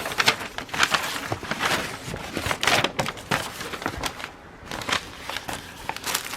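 Plastic packaging and a stiff folded paint-by-numbers canvas crinkling and rustling as they are handled and put back into the bag, in irregular bursts with a short lull past the middle.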